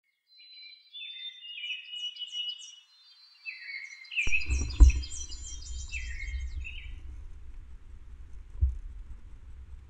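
Songbirds singing in quick phrases of repeated high chirps. About four seconds in, a low rumbling noise starts, with a sharp knock soon after and a softer one near the end.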